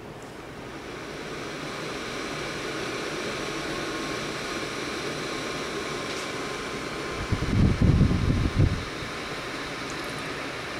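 Holmes mini tower fan running on low with oscillation: a steady whirring hiss with a faint whine, building over the first couple of seconds as the fan spins up. About seven seconds in comes a second and a half of low rumbling buffeting, the loudest part, as the swinging fan blows air onto the microphone.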